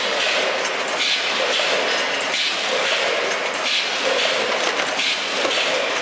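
Automatic snack-food bagging machine running: a steady mechanical clatter that swells about once a second with each bagging cycle.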